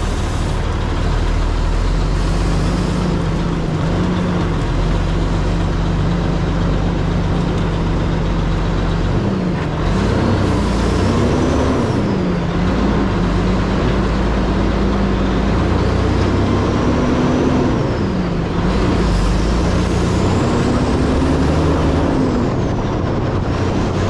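Diesel engine of a loaded grain truck running while under way, its pitch dipping and climbing several times as it shifts and pulls. A faint high whistle rises and falls with the engine.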